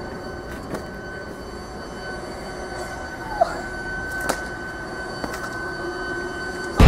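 Steady outdoor background noise with a thin, steady high whine and a few faint clicks; loud music cuts in at the very end.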